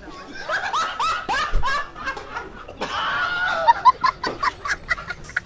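Laughter: a run of short falling 'ha' sounds that turn into quicker, shorter giggles in the second half.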